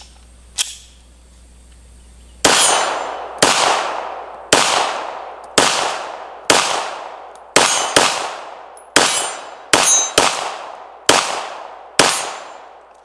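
Two sharp metallic clicks as the 9mm Glock-pattern pistol is worked by hand. Then a string of twelve 9mm pistol shots at an uneven pace, each shot trailing off in an echo.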